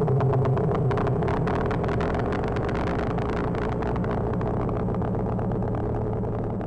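A steady droning noise with a low hum and dense crackling through it, easing off slightly near the end.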